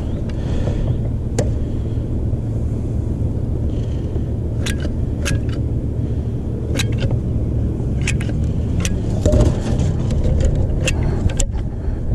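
Caulking gun being squeezed, its trigger and plunger rod giving several sharp clicks a second or so apart, over a steady low rumble.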